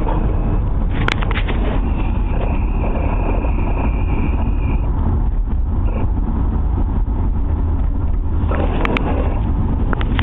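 1990 BMW E34 M5 on the move, with steady road and drivetrain rumble. A high-pitched chirping tone comes in about two seconds in, holds for about three seconds, and returns briefly near the six-second mark. The owner thinks it sounds like a bearing.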